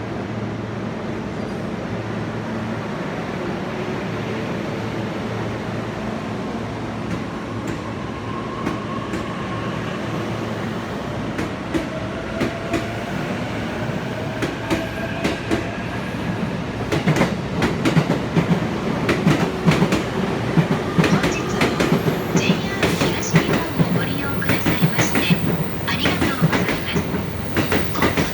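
Long Tokaido Line electric train pulling out of a station: a steady hum, then the traction motors' whine rising in pitch as it gathers speed, and from a little past halfway, a dense run of wheel clacks over rail joints.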